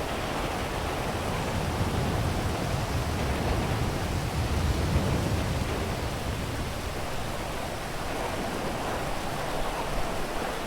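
Steady rain, an even hiss, with a low rumble that swells up about two seconds in and fades by about six seconds.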